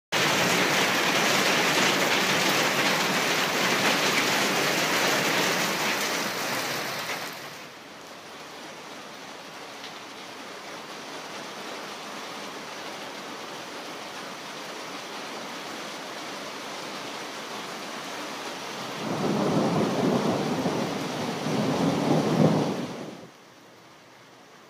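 Heavy rain pouring down onto a tiled patio, easing to a softer steady hiss after about seven and a half seconds. Near the end a deeper rumble of thunder swells for a few seconds and cuts off.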